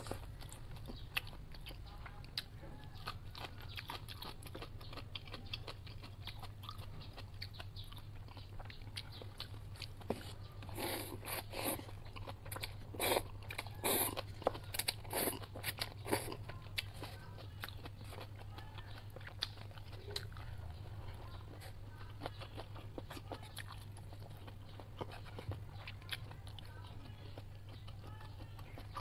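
Close-up eating sounds of cup ramen noodles: wet chewing and small mouth clicks, with a run of louder slurps from the cup near the middle. A steady low hum sits underneath.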